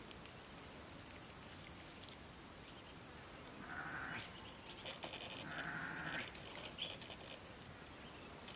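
Two faint, drawn-out bleating cries from an infant vervet monkey: the first about four seconds in and the second a second later, slightly longer.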